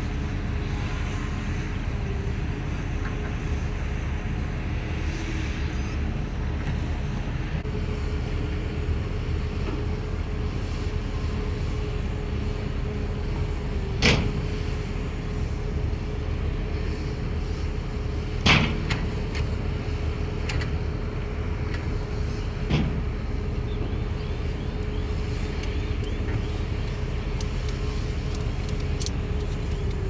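Heavy diesel earthmoving machinery running steadily, a low rumble with a constant whine, broken by three loud sharp knocks about four seconds apart and a couple of fainter ones near the end.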